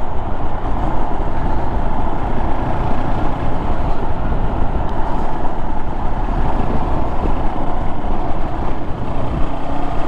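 Honda Monkey 125's single-cylinder engine running steadily while riding, under a constant rush of wind and road noise.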